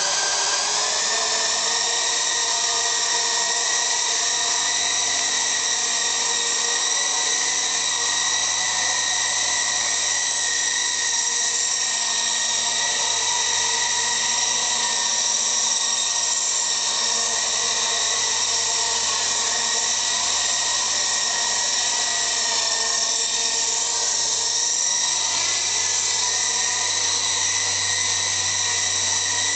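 Revell White Wolf RC helicopter's electric motor and rotor running, a steady high whine as it lifts off and hovers. The pitch rises slightly over the first second or two as the rotor spins up, then holds.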